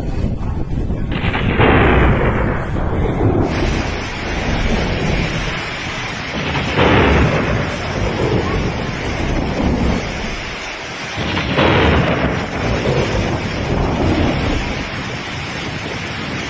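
Typhoon-force wind and heavy rain, a dense rushing noise with the wind buffeting the microphone. It surges louder three times, about a second and a half in, near the middle and about two-thirds through.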